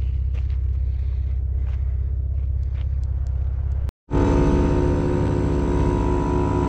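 A vehicle engine idles with a steady low rumble. After a sudden cut about four seconds in, a louder steady drone made of many even tones starts: an air compressor running to air the tires back up after off-roading.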